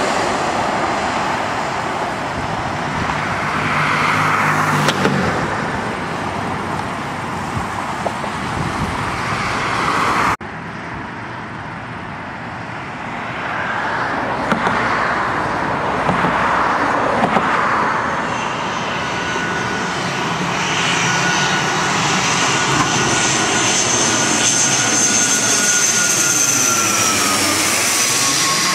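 Twin-jet airliner's engines as it flies low on final approach, then a twin-turboprop airliner approaching and passing low overhead, its high propeller whine dropping in pitch as it goes over.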